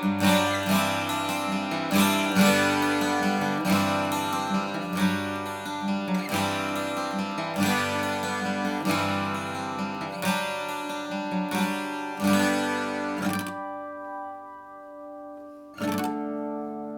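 Acoustic guitar played in a run of strummed and picked chords, ending on a chord left to ring out about thirteen seconds in; one more chord is struck near the end and rings.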